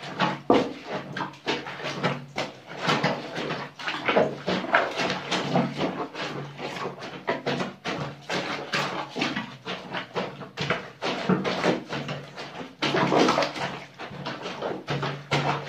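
Bare feet treading wet laundry in a plastic basin of soapy water: rapid, irregular squelching and sloshing, with a steady low hum underneath.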